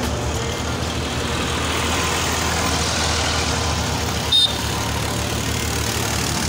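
A motor running steadily, a low drone under an even hiss, with one short high chirp about four seconds in.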